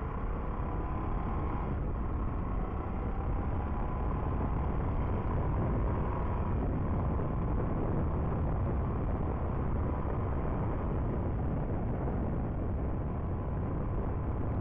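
Motorcycle riding at speed: heavy wind rush over the bike-mounted microphone with the engine note running underneath. The engine pitch shifts in the first couple of seconds, then holds fairly steady.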